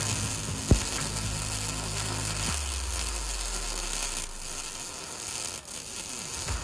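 MIG welding arc from a Prime Weld MIG180 laying a bead on the steel mower deck of a Cub Cadet LTX1045: a steady sizzling hiss, with one sharp pop about three-quarters of a second in.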